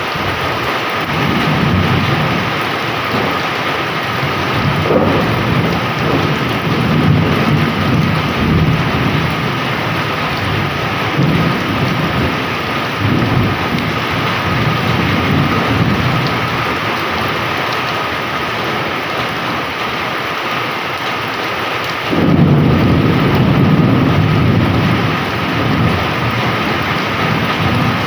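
Heavy rain pouring steadily, with thunder rumbling low several times; a louder rumble breaks in suddenly near the end.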